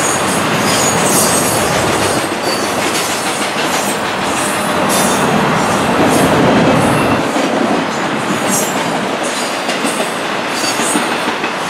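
CN intermodal double-stack train's container-laden well cars rolling past close by: a continuous rumble and rattle of steel wheels on rail, loudest about halfway through. Short, high-pitched wheel squeals come and go throughout.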